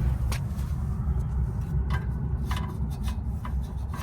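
Hand wrench working a 14 mm brake caliper bolt loose: scattered short metallic clicks and rubbing, about every half second, over a steady low rumble.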